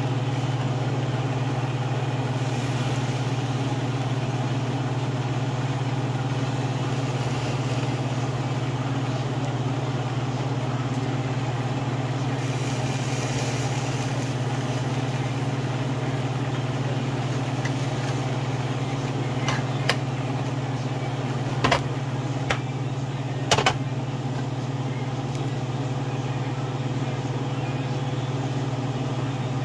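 Steady low mechanical hum, like a workshop motor or extraction fan running, with a faint hiss above it. A few sharp metallic clicks come about two-thirds of the way through.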